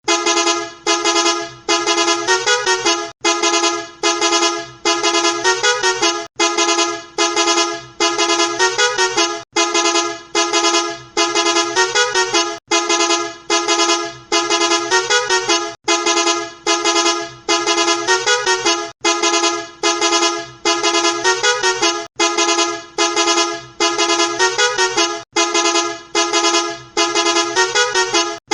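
Musical multi-tone bus horn playing a short tune of rapid honks that step up and down in pitch. The phrase repeats about every three seconds.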